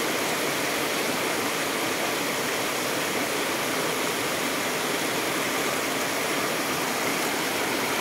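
Water rushing over boulders in shallow rocky river rapids: a steady, unbroken rush.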